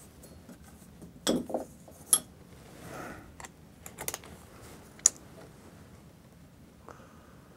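Scattered clicks and light knocks of tools and small hardware being handled while a wooden shelf bracket is fitted, with a few loud sharp ones between about one and five seconds in.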